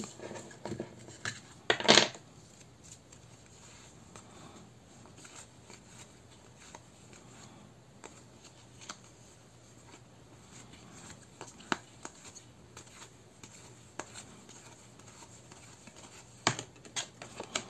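Tarot cards being handled and checked one by one: faint scattered scrapes and light taps of card on card, with a sharper tap about two seconds in and a few more near the end.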